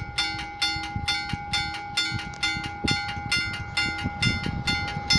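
Level-crossing warning bells ringing in a rapid, even series of strikes, about four a second, over a low rumble that swells near the end.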